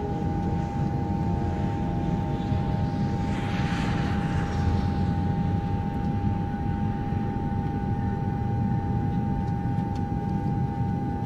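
Aircraft engine noise: a steady low rumble under a constant high whine, with a rushing swell of hiss about three to five seconds in.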